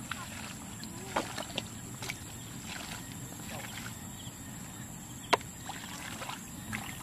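Hands squelching and sloshing through shallow wet mud while groping for fish, with a few sharp clicks, the loudest a little after five seconds in.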